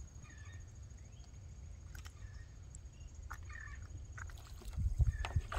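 Low wind rumble on the microphone on open water, with a few faint short bird chirps and light clicks. The low rumble swells with some thumps near the end.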